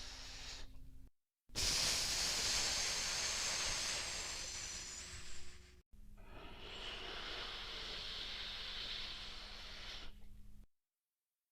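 Breathing sound effects: a breathy hiss that cuts off about a second in, then a loud rushing breath of about four seconds, then a second, softer breath of about five seconds that stops abruptly, leaving silence.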